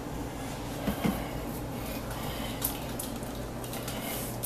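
Steady low hum of room background, with a few faint light clicks and a brief faint mumble about a second in.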